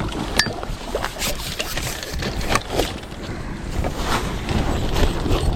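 Wind rumbling on the microphone, with scattered light clicks and rustles.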